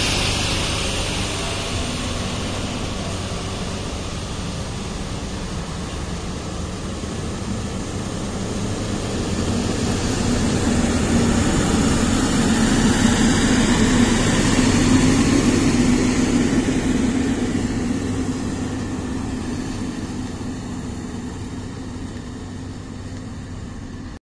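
Heavily loaded multi-axle goods truck driving past: its diesel engine and tyre noise grow louder to a peak about thirteen to fifteen seconds in as it passes close, then fade as it drives away.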